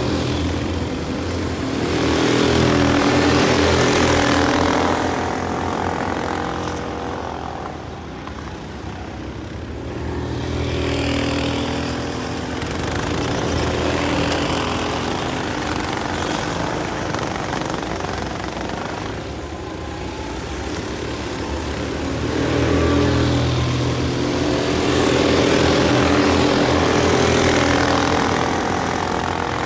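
Several go-kart engines running hard as a pack of racing karts goes round the track, their buzz swelling and fading as the karts pass close and move away. It is loudest a few seconds in and again near the end.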